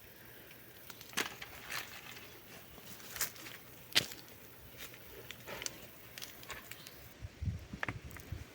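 Irregular sharp snaps and crackles of dry plant material being handled, as when dry cowpea pods are picked off the plants. A few low thuds come near the end.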